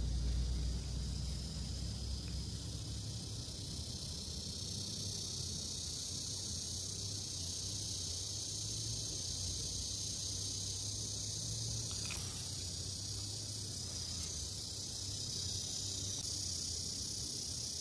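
Steady high-pitched chorus of insects in the grass, with a low rumble underneath and a single faint tick about twelve seconds in.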